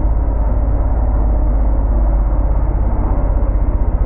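Dirt bike engines running on a motocross track, heard from a distance, under a heavy low rumble on the microphone.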